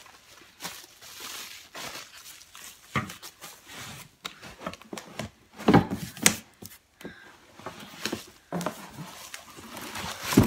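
Bubble wrap crinkling and rustling as wrapped pots and cardboard packing are pulled out of a box, with a few louder knocks, the strongest about six seconds in.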